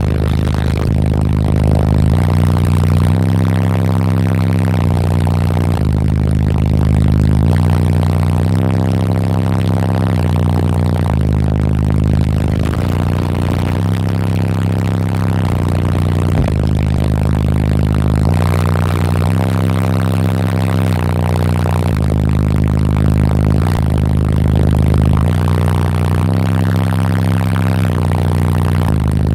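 Car audio system with four Sundown Audio 18-inch subwoofers playing at high output, heard as loud, deep bass notes that step up and down in pitch every second or two.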